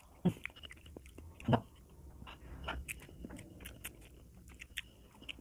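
A person eating fried instant noodles, heard close up: chewing with many small wet mouth clicks, and two louder thumps about a third of a second and a second and a half in.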